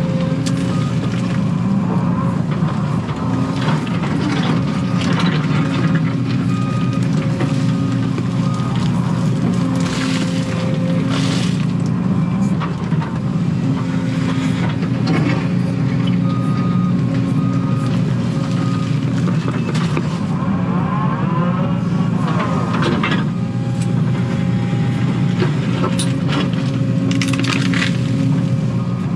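Excavator's diesel engine running steadily, heard from inside the cab, with a whine that comes and goes as the bucket is worked. Scattered crunching and scraping as the bucket digs out stumps, roots and dirt.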